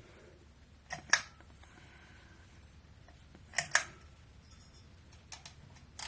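Sharp clicks in close pairs, three times a couple of seconds apart, like a ceiling fan's pull-chain switch being pulled and let go. A faint low hum runs underneath.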